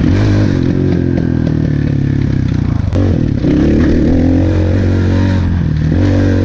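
Regulmoto enduro dirt bike engine running under throttle while riding. The engine note drops briefly about halfway through, then picks up again as the throttle is reopened.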